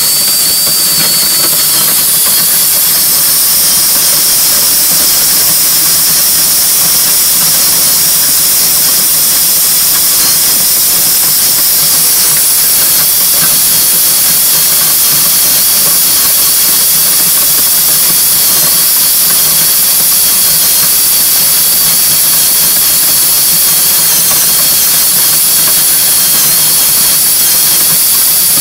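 Motor-driven grain rescue auger running steadily, drawing corn up and pouring it out of its discharge: a loud, even hiss with a faint, wavering high whine from the drive.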